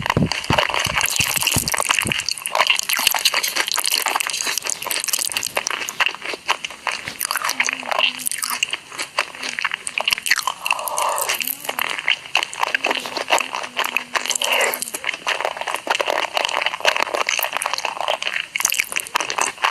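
ASMR eating sounds: crunching bites into fried corn dogs and chewing, a dense run of crisp crackles.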